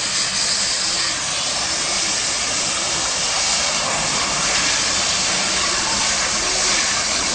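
Steady, loud hissing rush of a pressurised spray from a hand-held hose nozzle.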